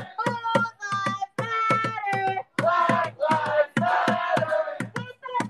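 A group of protesters chanting in a rhythm, with sharp hand claps about three times a second.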